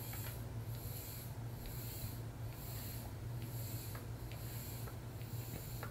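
A person drinking water through the straw lid of an insulated bottle: soft sucking that pulses about twice a second, over a steady low hum.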